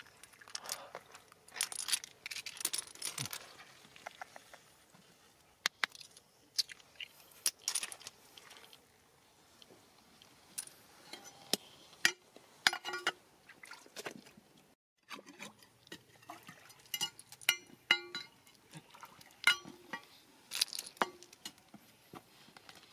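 Scattered hard clinks and taps: seashells clicking against each other in the hands, then a metal pick striking rock, some strikes ringing briefly.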